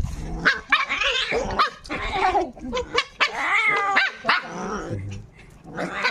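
Animals calling out in a fight: a run of short, pitched cries of changing pitch, with one longer wavering cry about three and a half seconds in.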